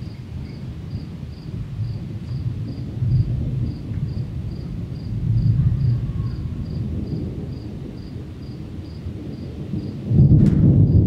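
Distant thunder rumbling low and continuous, swelling a few times, then a louder, sharper peal of thunder about ten seconds in. Crickets chirp steadily behind it, about three chirps a second.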